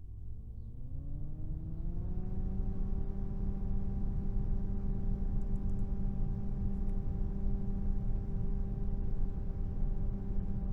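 Noctua NF-R8 80 mm PC fan spinning up. Its whir rises in pitch over the first two to three seconds, then runs steadily as a hum over a rush of air, heard from close range.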